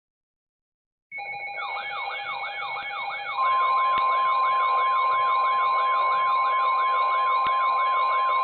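Emergency alert tones start abruptly from silence about a second in: a fast warbling siren sweep, rising and falling about three times a second, over several steady tones. About two seconds later a louder, steady high alert tone joins and holds.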